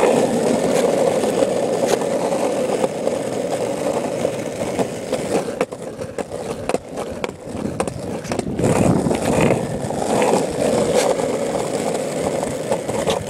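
Variflex cruiser skateboard with soft longboard wheels rolling steadily over rough asphalt, with scattered clicks as the wheels cross cracks and bumps.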